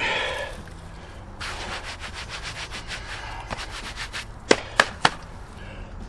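Rustling and scraping with many small clicks, then three sharp knocks a little before the end.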